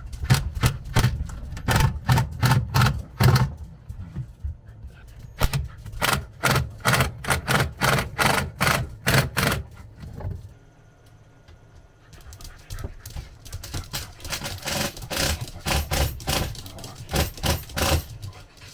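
Quick, irregular runs of sharp clicks and light knocks, several a second, over a low rumble. They drop away for a second or two about ten seconds in, then start again.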